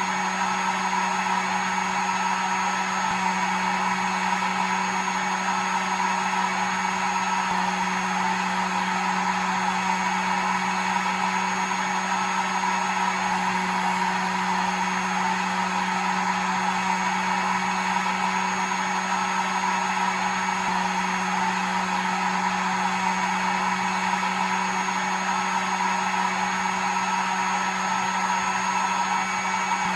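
Hair dryer running steadily: an even blowing hiss over a constant motor hum, used as white noise to lull a baby to sleep.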